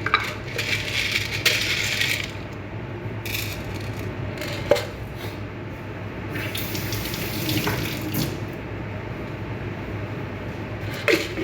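Water running from a tap into a sink in spurts, with a couple of light knocks partway through.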